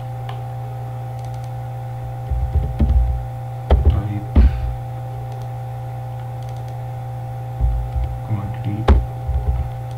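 Steady low electrical hum, with three short clusters of muffled computer-keyboard keystrokes and a couple of sharper clicks as text is typed.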